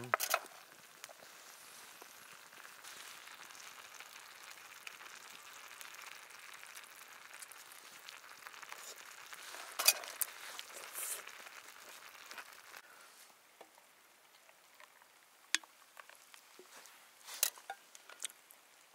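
Food sizzling over a camp stove: a steady sizzle that fades out about thirteen seconds in, followed by a few sharp clicks.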